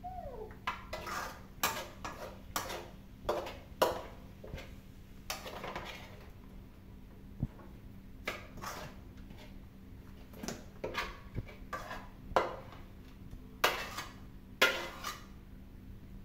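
Metal spatula scraping and clanking against a steel wok and plate while scooping stir-fried vegetables out of the wok: a run of irregular sharp clanks and scrapes, a few every second.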